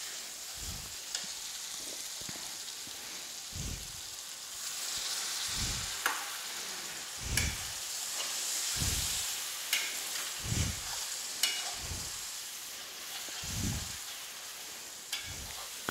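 Onion-and-spice masala sizzling in oil in a metal kadhai, with a perforated metal ladle scraping and pushing it around the pan about once every second and a half. The masala is being fried down (bhuna) with splashes of water until it releases its oil.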